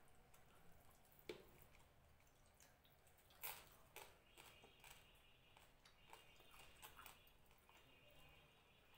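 Faint eating sounds of a mouthful of rice and fish being chewed, with soft wet mouth smacks and a few sharper clicks, two of them standing out about a second in and midway.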